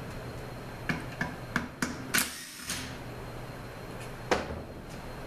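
Metal transmission parts being handled on a steel workbench: a few sharp clinks, a short scrape a little after two seconds in, and a louder clank about four seconds in.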